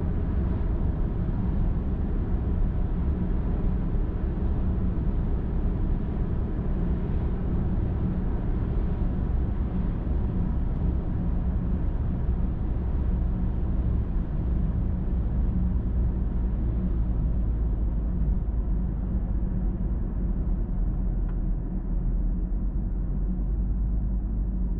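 Car driving along a highway: a steady low rumble of road and engine noise with tyre hiss. The hiss thins out over the last several seconds.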